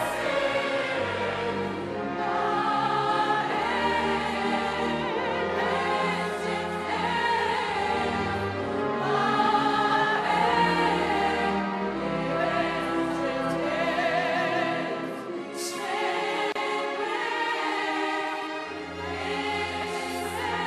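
Operatic soprano singing a hymn in ancient Egyptian with a choir and an orchestra, over sustained bass notes that change every second or two.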